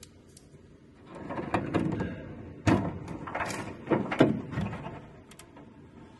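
Hands working plastic plug-in terminal-block connectors and their wiring loose from a laser cutter's controller board: rustling and scraping with a few sharp clicks, starting about a second in.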